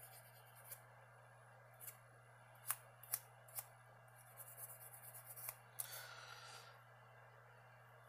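Faint handwork on a slipjoint pocketknife with fine abrasive paper: light scratching and a scatter of small sharp clicks from the metal knife. About six seconds in, a louder click is followed by a short ring that fades within a second.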